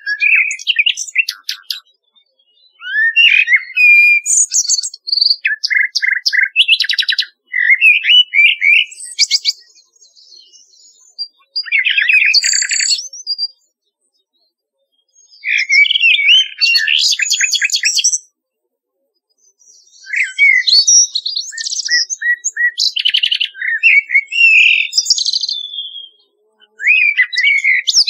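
Common nightingale and blackbird song: a string of varied phrases of clear whistles and rapid repeated notes, each a second or two long, with short pauses between them.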